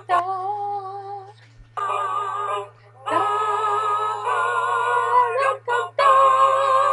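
A young woman singing a song alone, in long held notes with wavering pitch, four phrases with short breaks between them. A steady low electrical hum sits under the voice.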